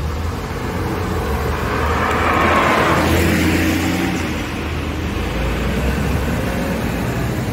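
A city bus and a sports car pulling away along a street. Their engine sound swells to a peak about two and a half seconds in, then eases off.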